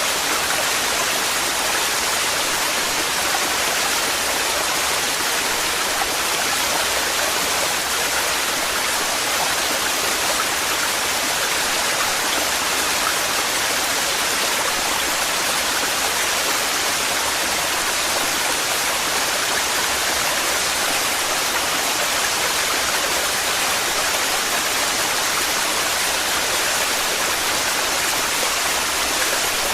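Waterfall in heavy flow: a steady, unbroken rush of falling water.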